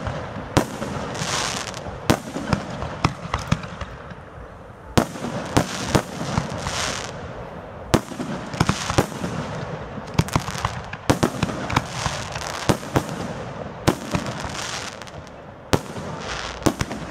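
Aerial firework shells bursting: a run of sharp bangs at uneven intervals, sometimes several in quick succession, with spells of hissing crackle between them.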